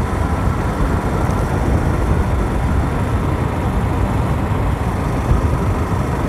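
Steady wind rush buffeting the microphone, with road noise from a vehicle cruising along a highway.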